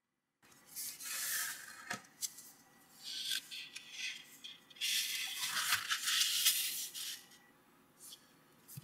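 A sheet of origami paper rustling and sliding under the hands as it is folded in half, creased and opened out again: several papery swishes with a few small taps, the longest about five seconds in.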